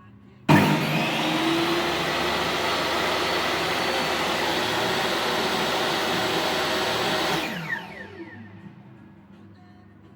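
Table saw motor switched on, coming up to speed almost at once and running steadily for about seven seconds, then switched off, the blade spinning down with a falling whine.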